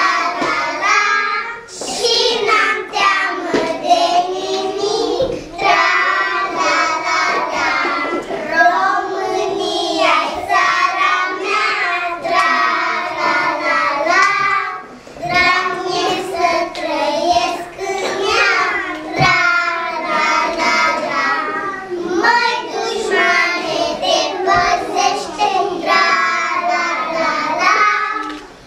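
Young kindergarten children singing a song together, one continuous sung passage with short breaks between lines.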